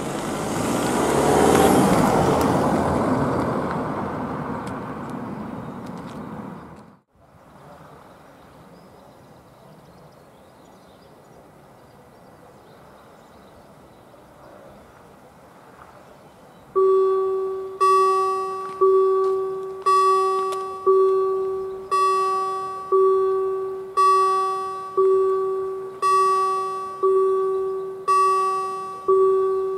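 A car drives across the level crossing close by, its tyre and engine noise rising and fading over the first few seconds. After a quiet stretch, the crossing's electronic warning bell starts about two-thirds of the way through, ringing about once a second with a dying-away two-tone chime: the crossing has begun warning of an approaching train.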